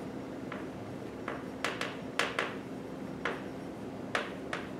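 Chalk writing on a blackboard: a string of short, irregular taps and scratchy strokes as letters are written, over a faint steady room hum.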